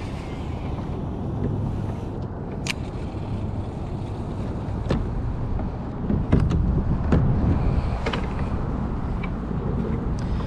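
Wind rumbling on the microphone of a kayak on open water, with a few scattered clicks and knocks.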